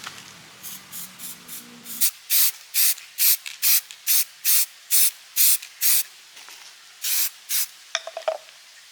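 Spray nozzle hissing in short bursts, about two a second: faint at first, then a loud run of about ten, and two more after a short pause.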